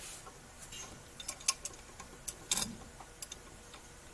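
Scattered faint metallic clicks and clinks of a wrench working the stud nut of a new ball joint as it is tightened.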